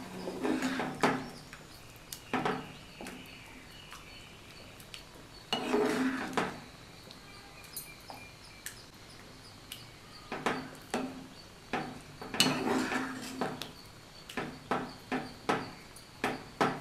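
Slotted steel spoon scraping and knocking against a nonstick pan while stirring semolina into boiling water to keep it from forming lumps. It comes in several short bursts, with a quick run of evenly spaced taps near the end.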